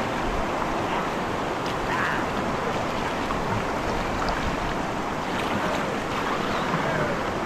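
River water rushing over rapids: a steady, even rushing noise.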